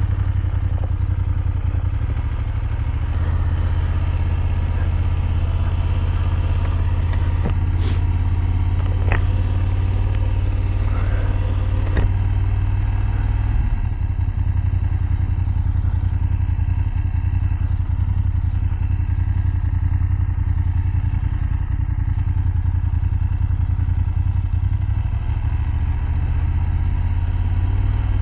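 BMW F750GS's 853 cc parallel-twin engine running at a low, steady pace while riding, heard from on the bike. A few sharp clicks come between about eight and twelve seconds in.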